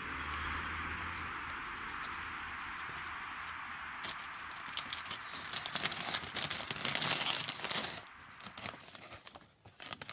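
Packaging crinkling and rustling as a puzzle is unwrapped, densest and loudest from about four to eight seconds in, after a few seconds of steady hiss.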